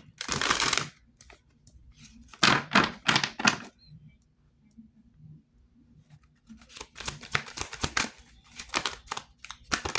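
A deck of reading cards being shuffled and handled, in rustling, snapping bursts: one at the start, a few more about two and a half to three and a half seconds in, and a longer run of quick riffling from about seven seconds in.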